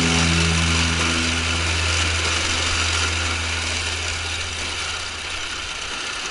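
Steady mechanical clatter of a Reform 2000's finger-bar mower and belt rake at work. The tail of background music fades out over the first few seconds.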